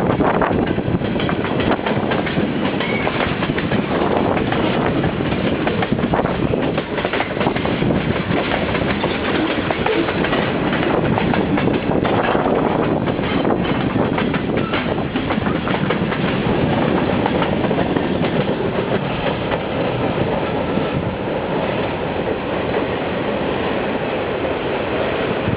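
Freight train rolling past, steel wheels clicking and clattering over the rail joints in a steady, continuous rumble.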